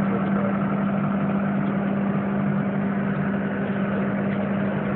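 Hyundai tracked excavator's diesel engine running steadily, a constant even drone with no change in pitch while the arm and bucket are worked.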